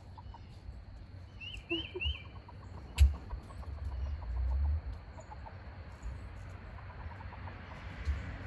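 Backyard chickens clucking softly in runs of quick low notes, with three short high peeps about a second and a half in. A single sharp click about three seconds in is the loudest sound.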